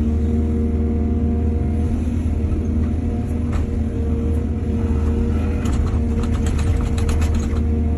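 Excavator's diesel engine running steadily under load, with a rapid run of clattering and rattling from about five and a half to seven and a half seconds in.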